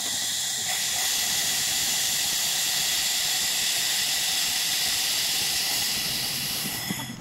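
LaserMen LM-2000 handheld fiber laser welder running a weld along a metal T-joint: a steady, loud hiss with several thin high whining tones in it, which dies away about seven seconds in as the welding stops.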